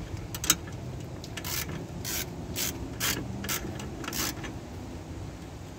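Ratchet wrench on a long socket extension clicking in short bursts, about two a second, as it is worked back and forth to loosen a fastener under the car.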